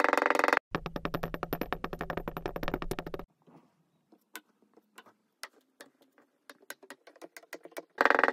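Kinetic sand crunching and crackling as a wooden rod presses down into it in a glass: dense rapid crackling that stops abruptly twice in the first few seconds, sparse faint crackles through the middle, then loud dense crackling again near the end.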